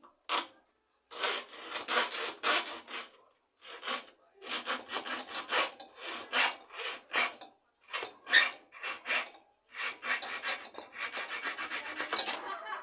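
Bare hacksaw blade, held by hand without its frame, sawing through a refrigerator compressor's pipe: runs of quick, rasping back-and-forth strokes broken by short pauses, ending as the pipe is cut through.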